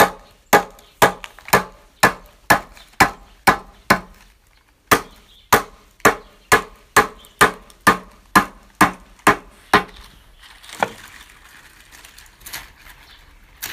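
Wooden mallet pounding a stack of dried palm-leaf fan blanks with steady, evenly timed blows, about two a second, with a short pause partway through. The blows stop about ten seconds in, followed by a single knock and faint rustling handling of the leaves.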